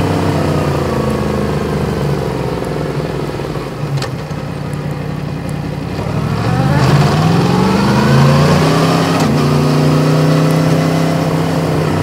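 Yamaha MT-10's crossplane inline-four engine heard from on the bike. The engine note falls as the bike slows over the first few seconds, rises as it accelerates from about six and a half seconds in, and then holds steady.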